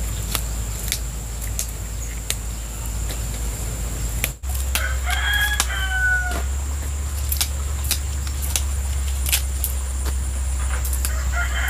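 A rooster crows once, a slightly falling call about five seconds in, and starts crowing again near the end. Short crisp snaps of genjer stalks being broken by hand come throughout, over a steady low hum.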